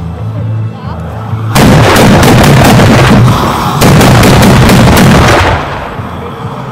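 Carbide cannons, tubes and milk churns charged with calcium carbide, firing in two loud rapid volleys of bangs. The first starts about one and a half seconds in and the second about four seconds in, each lasting around two seconds. Music plays underneath.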